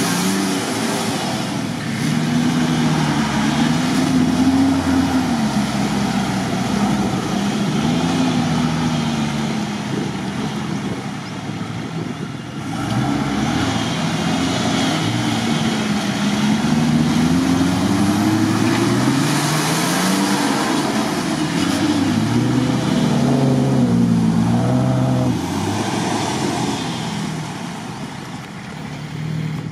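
Off-road 4x4 engines revving hard, the pitch rising and falling over and over as the drivers work the throttle to climb a near-vertical muddy bank: first a Nissan Patrol Y61, then a Jeep Wrangler Rubicon.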